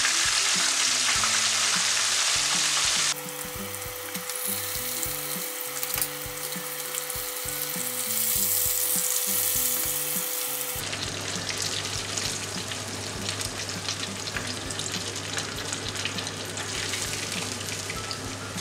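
Breaded catfish fillets frying in hot oil in a pan: a steady sizzle with crackling. It is loudest for the first three seconds, then abruptly quieter.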